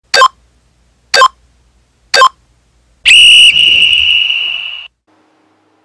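Workout interval-timer countdown: three short sharp beeps a second apart, then a long high whistle blast that signals the start of the exercise, fading slightly over about two seconds. A short sharp sound comes right at the end.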